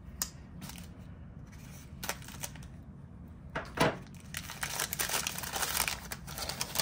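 Brown kraft paper wrapping being unrolled and unfolded by hand: a few light handling clicks at first, then steady paper crinkling and rustling through the last couple of seconds.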